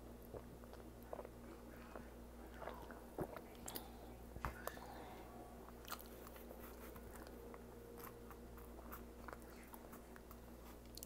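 A person chewing food close to the microphone, with soft wet mouth clicks and a few sharper smacks between about three and five seconds in, over a steady low hum.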